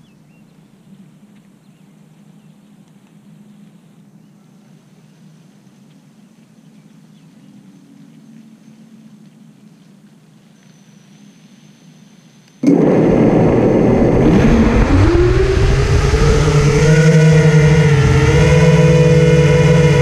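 Faint low hum, then about two-thirds of the way in the FPV quadcopter's electric motors start abruptly, a loud whine that rises in pitch as the propellers spin up and then wavers up and down with the throttle as the quad lifts off.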